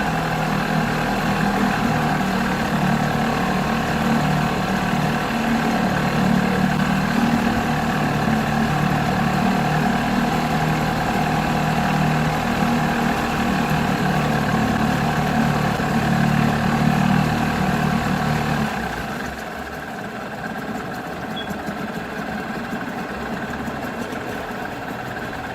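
Nissan 5 hp two-stroke outboard motor running steadily in forward gear in a test tank, now running after its no-start repair. About 19 seconds in it drops noticeably quieter and keeps running.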